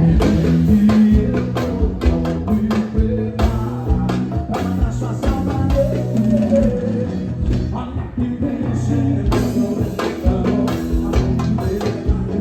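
Live band playing a song with a singer, steady bass and a regular drum beat.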